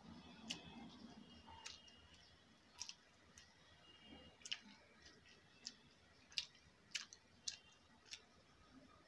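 Steel fork clinking and scraping against a stainless-steel compartment plate while food is scooped up: about ten quiet, irregular clicks, a few with a brief metallic ring.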